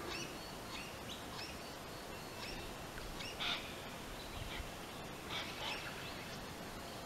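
Several birds chirping and calling faintly over steady outdoor background noise, with two brief louder noises about three and a half and five and a half seconds in.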